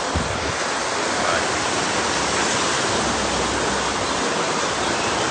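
Steady rushing of water from a marine reef aquarium's circulation and filtration, an even hiss.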